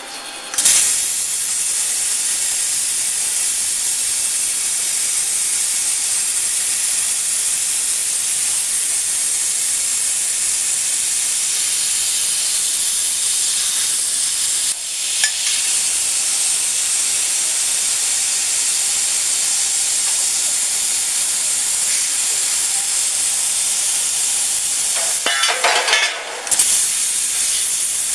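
Portable CNC plasma cutter cutting steel plate: the loud, steady hiss of the plasma arc and its air jet, starting abruptly about half a second in. It briefly dips about halfway through and breaks off for a moment near the end.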